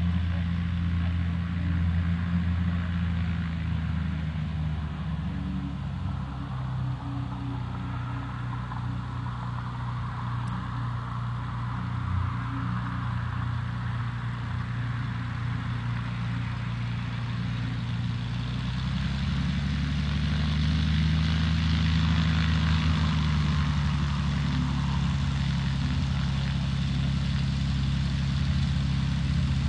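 Cessna 182A's six-cylinder Continental O-470 piston engine and propeller running with a steady drone. About two-thirds of the way through, its pitch rises a little and it grows louder.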